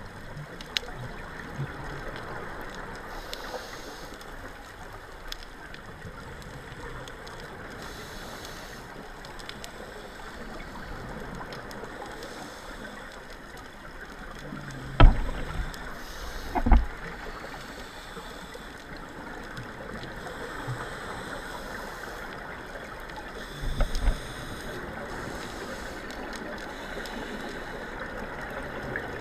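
Underwater sound heard through a camera housing: a steady hiss, with scuba divers' exhaled bubbles rushing every few seconds. Three loud, short low thumps come about halfway through and again near the end.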